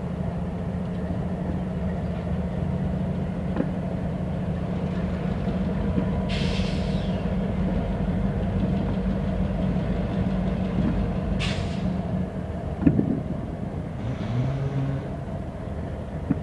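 Diesel locomotives running with a steady low drone, with two short hisses of air, about six seconds in and again about five seconds later, and a single knock a little after that.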